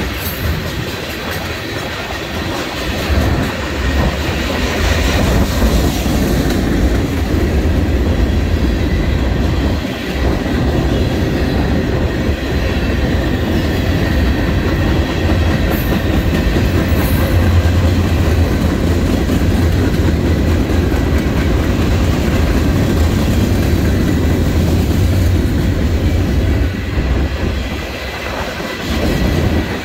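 Freight cars of a mixed freight train rolling past: a loud, steady rumble of steel wheels on the rails.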